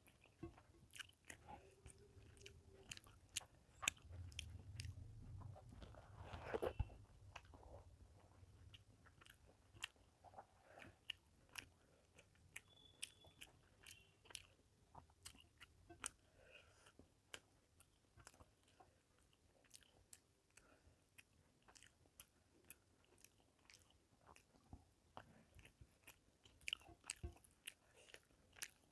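Faint close-up eating sounds: a person chewing rice and fish curry, with many small wet mouth clicks and smacks. A single louder thump comes about seven seconds in.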